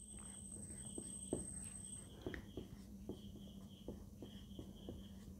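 Faint background with a steady low hum, a thin high chirp repeating about twice a second, and scattered soft clicks.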